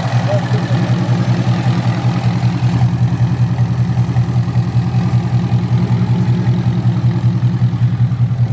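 2015 Ford Mustang GT's 5.0-litre Coyote V8 idling steadily, with an even low pulsing beat. The exhaust is loud and open, which the owner takes for a muffler delete.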